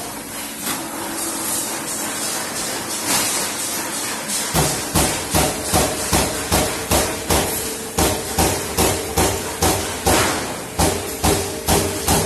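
Trumpf Trumatic 500 CNC punching press working sheet metal. A steady machine hum with a few scattered strikes runs for the first four seconds or so. After that comes a regular run of sharp punch strokes, about two to three a second.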